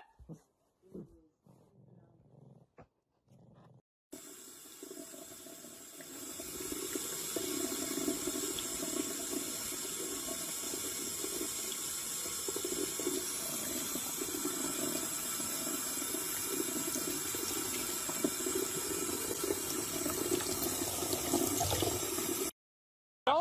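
Kitchen tap running, a thin stream of water splashing into a mug in the sink. It starts about four seconds in and grows louder around six seconds in.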